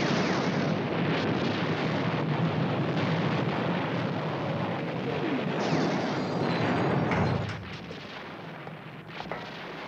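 Battle sound effects: a dense, continuous din of gunfire and explosions, dropping much quieter about seven seconds in.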